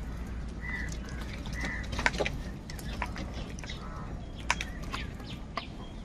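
House crows pecking at grain and a plastic feeding bowl: scattered sharp taps and clicks, the loudest about two seconds in and again past four seconds, mixed with a few short bird calls in the first two seconds.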